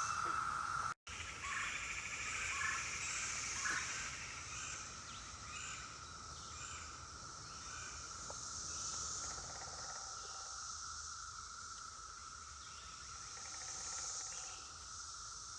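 Chorus of Brood X 17-year periodical cicadas: a steady distant hum with a higher hiss above it that swells and fades twice. Short bird chirps come over it in the first few seconds.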